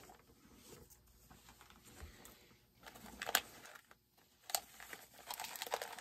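Rummaging through plastic parts boxes: faint rustling of plastic bags and parts, with a few sharp plastic clicks and knocks from about the middle on.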